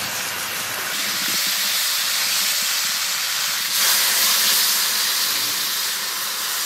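Bottle gourd and potato pieces sizzling in hot mustard oil in a steel kadai as they are stirred. Nearly four seconds in, water is poured into the hot pan and the hiss grows louder as it steams.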